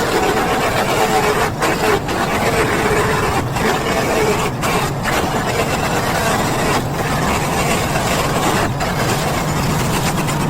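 Small petrol engine running steadily at working speed, its pitch wavering slightly, with a few very brief dips in the sound.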